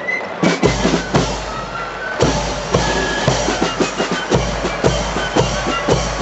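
Marching band drum corps beating a march: snare drums, bass drum and crash cymbals in a steady rhythm, with thin high flute notes above. The drumming comes in with sharp strokes about half a second in and settles into a fuller, steady beat about two seconds in.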